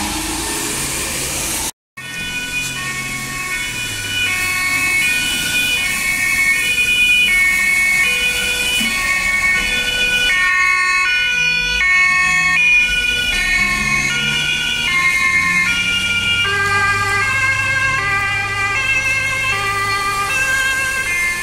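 Two-tone sirens of fire-brigade emergency vehicles, a fire engine and a crew van, sounding in alternating high-low steps, more than one siren at once at different pitches. A vehicle engine joins underneath near the end.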